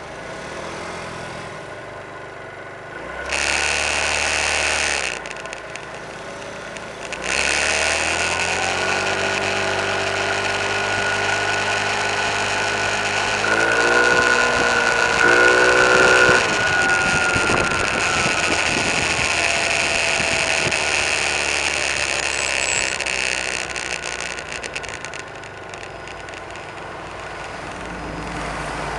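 A small motor scooter's engine running and revving, rising in pitch and loudest about halfway through, then dropping away near the end. It is heard from inside a car, with the car's engine running underneath.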